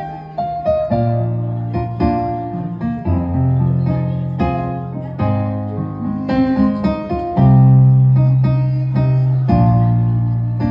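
Piano or electric keyboard playing slow chords with sustained bass notes, each struck and left to ring and fade.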